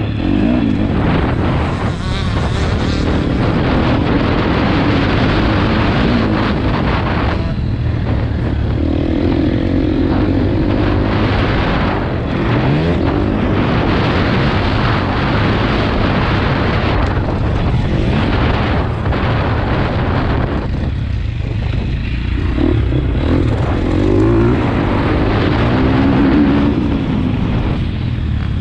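Motocross dirt bike engine at full throttle, revving up and down through the gears, with a heavy rush of noise over it. The revs drop back briefly about a quarter of the way in and again about three-quarters through.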